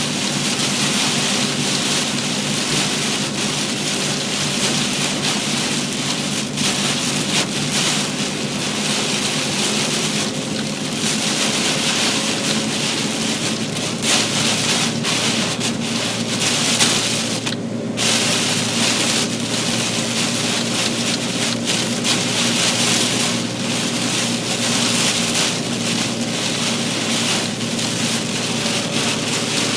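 Torrential rain drumming on a moving car, heard from inside, with a steady low hum underneath. The rain noise drops out briefly once, about eighteen seconds in.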